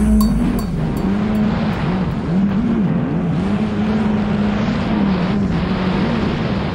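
Yamaha WaveRunner GP760 personal watercraft's two-stroke twin engine running at speed, its note dipping and rising with the throttle, holding steady for a couple of seconds in the middle, then wavering again.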